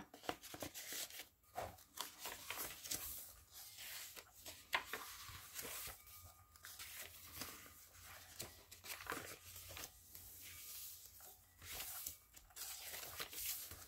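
Paper pages of a handmade junk journal being turned and smoothed by hand: faint, scattered rustling and brushing of paper, with one louder rustle about five seconds in.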